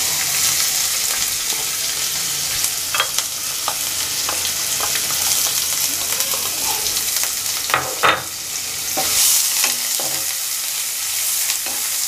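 Chopped onions sizzling steadily in hot oil with mustard seeds and spices, the frying stage of a tadka. A wooden spatula stirs them, knocking and scraping against the non-stick pan a few times.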